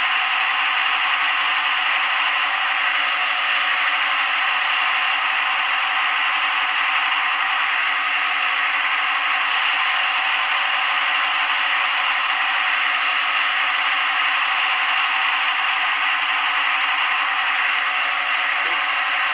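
Machining sound effect of a CNC lathe simulator app running a thread-cutting cycle: a steady rattling hiss with a few faint steady tones, unchanging throughout.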